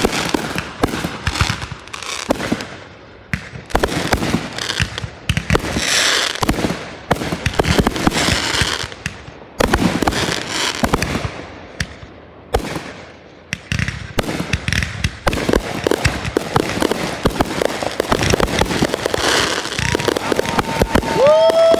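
Fireworks going off: a quick run of sharp bangs and crackling, with stretches of high hissing between the reports, crowding closer together in the last third.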